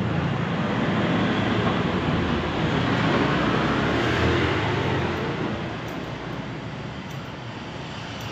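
Steady rushing noise of passing road traffic, loudest in the first half and dying down after about five seconds, with a few faint scissor snips near the end.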